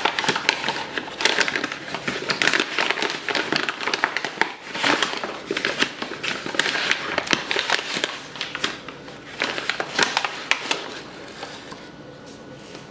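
Dense crinkling and rustling with many small clicks, like packaging being handled, easing off about a second before the end.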